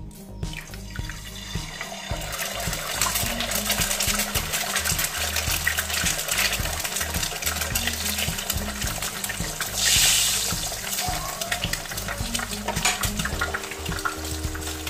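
An egg frying in hot oil in a nonstick pan: a steady sizzle with crackling spatters that builds up about two seconds in, swelling louder briefly about ten seconds in. Background music with a steady bass beat plays underneath.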